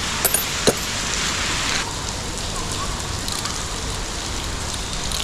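Steady hiss of rain falling on surfaces, with a few small clicks and knocks in the first second.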